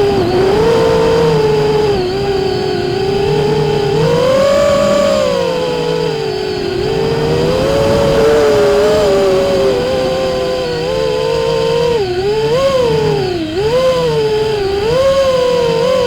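FPV quadcopter's electric motors and propellers whining, the pitch rising and dipping as the throttle changes, with quicker swings in the last few seconds.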